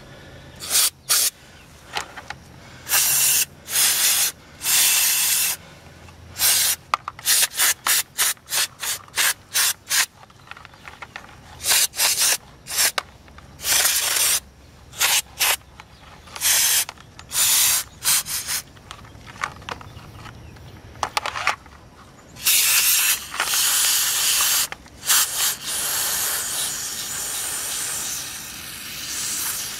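Aerosol can of brake cleaner spraying through its extension straw in many short hissing bursts, then longer sprays near the end, washing the old factory grease off a speedometer cable.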